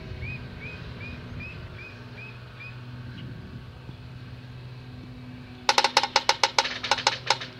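A bird gives a string of about eight short, rising chirps. Near the end, a woodpecker hammers on wood: a fast, loud run of about fifteen knocks lasting under two seconds. A low steady hum lies underneath.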